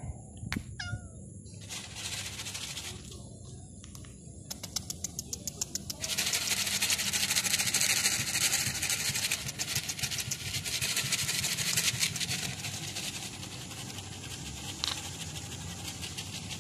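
Night insects chirping in a dense, fast pulsing chorus that swells loud for several seconds in the middle, with a brief high sound about half a second in.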